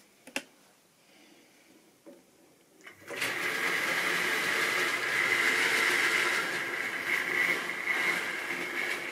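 Model railway locomotive's small electric motor whirring steadily as it runs along the track, starting about three seconds in, after a short click.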